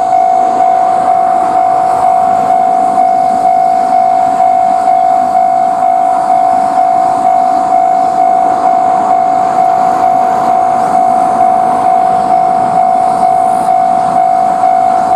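Japanese level-crossing electronic warning bell ringing steadily in an even repeating 'kan-kan' rhythm, with the noise of a train passing through the crossing underneath.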